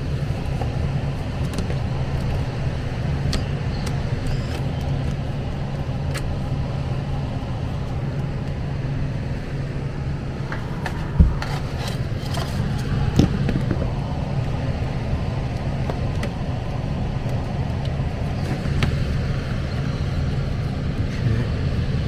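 Lennox furnace's PSC blower motor running, a steady low hum with air moving through the cabinet. Light clicks of hands and parts against the sheet-metal cabinet, with one sharp knock about 11 seconds in.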